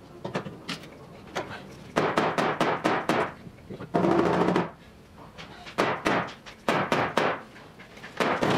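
Hammer blows on the steel inner wheel well of a Triumph TR6 body shell, driving the split bump-stop box back in. The strikes come in irregular runs of quick, ringing blows, with a dense flurry about four seconds in.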